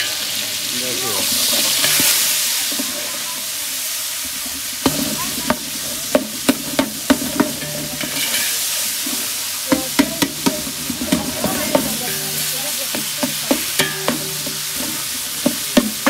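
Onions, tomatoes and green chillies sizzling in a large metal pot while a long perforated metal ladle stirs them. From about five seconds in, the ladle clanks and scrapes against the pot a few times a second over the steady sizzle.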